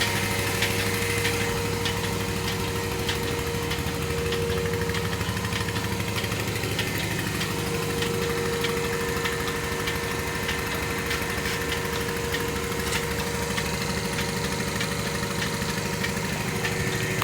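Milking machine's motor-driven vacuum pump running steadily, a low hum with faint regular clicks about every two-thirds of a second.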